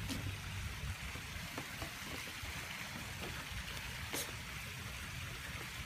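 Wind buffeting the microphone over a steady rush of running water from a garden pond waterfall, with one sharp click about four seconds in.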